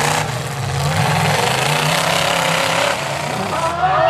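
Demolition derby cars' engines running and revving together, a steady loud engine noise with no single crash standing out.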